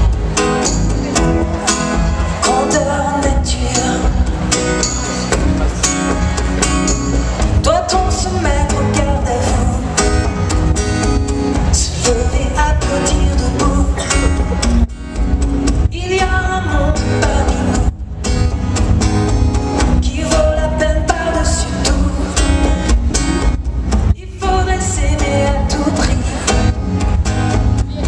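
Live song played through a concert PA: a voice singing over strummed and picked guitars, with a heavy low end and the boom of a large hall, recorded from among the audience.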